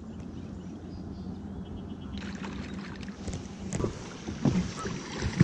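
A steady low hum in a fishing boat on the water, with a few faint knocks and clicks in the second half.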